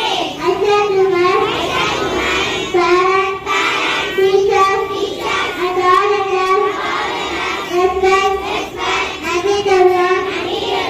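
Children singing a prayer through a microphone, in short held phrases of about a second each, repeating steadily.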